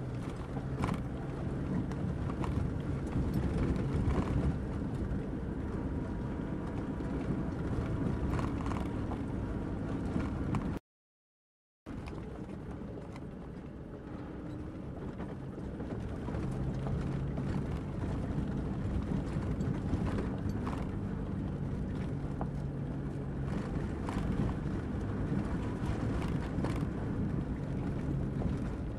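Land Rover Defender engine and drivetrain running steadily, heard from inside the cab while driving slowly over a rough stony track, with scattered knocks and rattles as the wheels go over stones. The sound cuts out for about a second near the middle and then carries on as before.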